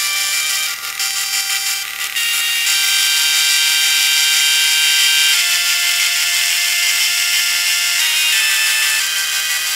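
Epson dot matrix printer driven as a MIDI instrument, its print mechanism buzzing out a slow tune of held notes that change pitch every second or few. The sound grows louder about two seconds in.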